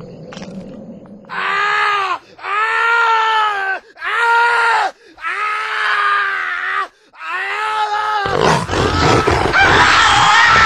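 A man screaming and wailing in five long, pitched cries with short breaks between them. About eight seconds in, the voice turns into a louder, harsher, noisier scream.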